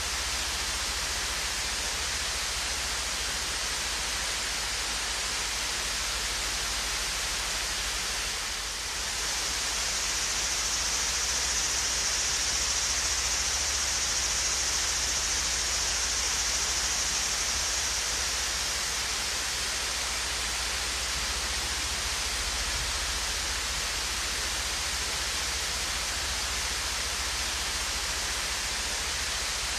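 Swayze Falls waterfall pouring steadily as a rushing hiss, a little louder and brighter for several seconds in the middle.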